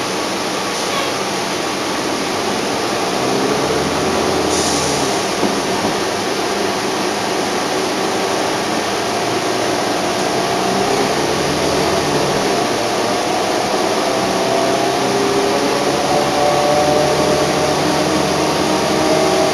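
Interior ride noise of a NABI 31-LFW bus under way: its Cummins L Gas natural-gas engine and ZF automatic transmission droning steadily with road noise. From about halfway through, a whine climbs gently in pitch as the bus picks up speed.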